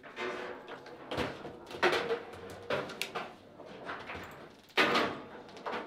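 Table football in play: sharp knocks and clacks of the ball being struck and rods sliding, six or seven hits spread out irregularly. The loudest comes about five seconds in.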